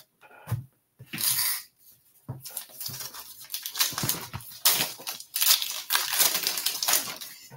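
A foil trading-card pack wrapper rustling and crinkling as it is torn open by hand: a short rustle about a second in, then a scratchy, uneven crackle over the last five seconds.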